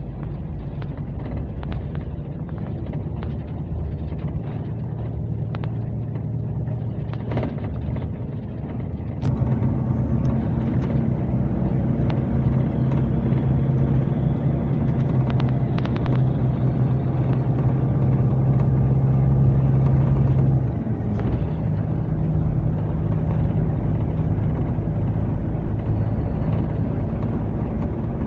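Scania K370C coach's six-cylinder diesel engine running on the road, a steady drone. About nine seconds in it pulls harder and gets louder, easing back a little about twenty seconds in.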